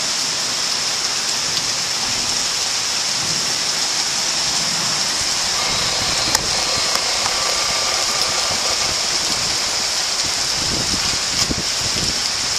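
Heavy thunderstorm downpour: a steady hiss of rain pouring onto the ground, street and roofs, with a few sharp taps and some low rumbling near the end.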